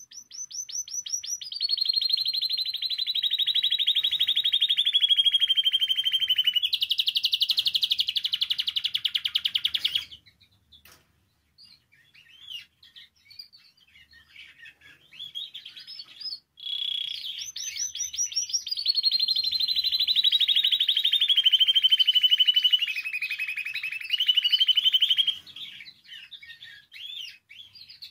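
Spanish timbrado canary singing: two long runs of fast trills, each starting high and stepping down in pitch, the first breaking off abruptly about ten seconds in, with softer scattered chirps between and after them.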